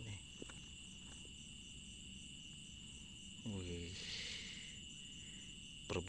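Crickets chirping through the night: a steady high trill with a quick pulsing chirp above it. A short voice sound about three and a half seconds in, and a few faint clicks of the net being handled near the start.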